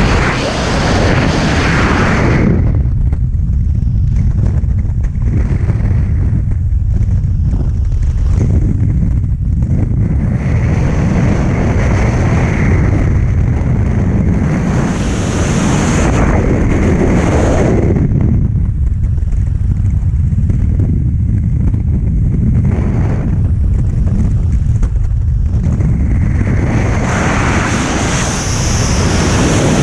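Freefall wind buffeting a camera microphone during a tandem skydive: a steady, loud, low roar, with a higher hiss that swells in and out three times, near the start, in the middle and near the end.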